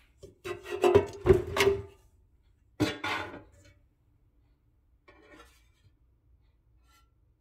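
Metal air fryer baskets and crisper plates clattering against each other and the countertop as they are handled: a run of knocks with a short ring in the first two seconds, then one sharp knock about three seconds in. A faint rustle and a small tick follow.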